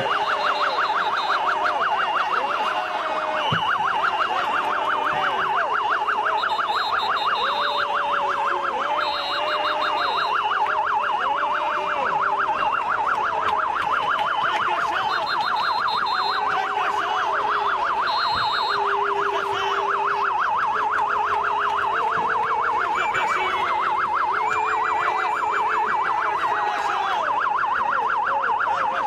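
Police car siren sounding a fast yelp, its pitch rising and falling rapidly without a break.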